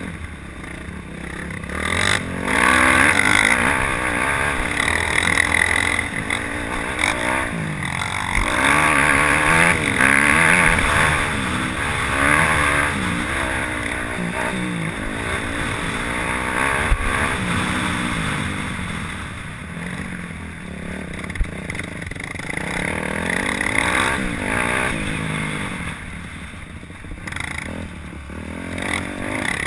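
Yamaha YZ250F motocross bike's four-stroke single-cylinder engine heard close from the rider's helmet, revving up and falling back again and again through the throttle and gear changes of riding a dirt track.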